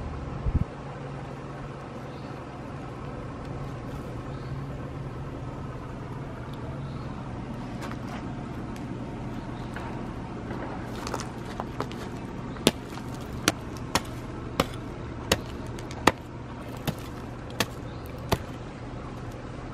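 A steady low mechanical hum throughout, with a thump about half a second in. In the second half, about nine sharp knocks come at a steady pace, a bit under one a second, as a hole is dug in hard red clay soil.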